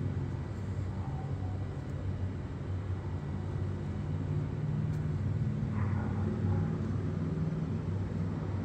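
A steady low mechanical hum and rumble, as from a motor running continuously.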